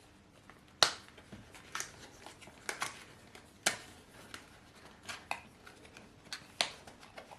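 A microphone's retail box being opened by hand: irregular sharp clicks and snaps with light rustling of the packaging between them, about seven clicks in all.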